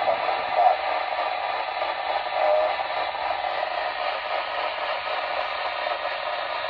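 CB radio receiver on an open channel: a steady hiss of static from the rig's speaker, thin and band-limited, with no clear voice coming through.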